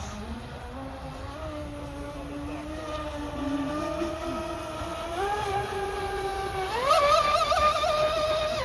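Fast electric RC boat running on the water, its motor whine holding a steady pitch, stepping up slightly about five seconds in, then rising sharply as it throttles up and holding high with a wavering pitch before falling away at the end.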